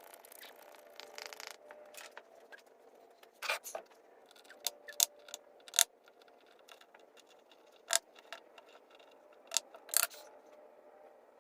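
Scattered sharp knocks and clicks of objects being handled, about a dozen, irregularly spaced, a few followed by a brief ringing tone.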